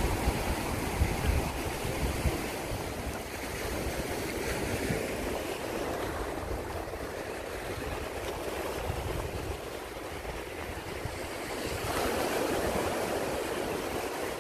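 Ocean surf washing on a sandy beach as a steady wash that swells near the end, with wind rumbling on the microphone, gustiest in the first couple of seconds.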